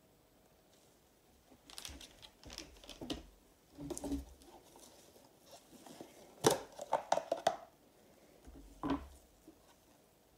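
Plastic crinkling and clicking as a clear plastic box is handled and set down on crinkly plastic sheeting, in scattered bursts. The sharpest clicks come a little past the middle.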